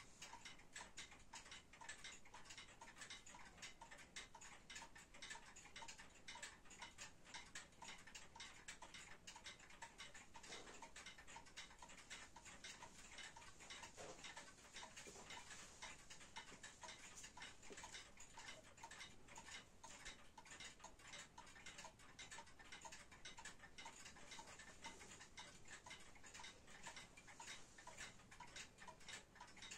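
Warmink Wuba Dutch wall clock ticking steadily and faintly, its escapement making an even run of clicks as the pendulum swings.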